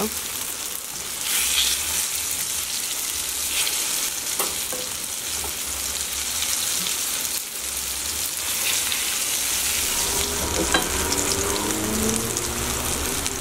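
Breaded plantain slices sizzling as they shallow-fry in hot oil in a cast-iron skillet: a steady crackling hiss. A few light taps of a utensil against the pan can be heard.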